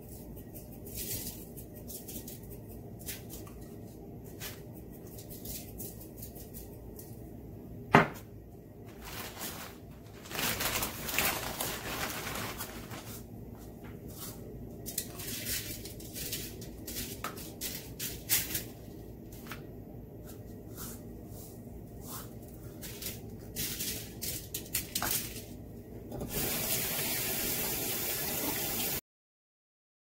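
Kitchen handling sounds of seasoning a fish on aluminium foil: scattered clicks and crinkles of foil and a spice shaker, one sharp click about eight seconds in, and several stretches of hissy shaking and sprinkling. The sound cuts off suddenly just before the end.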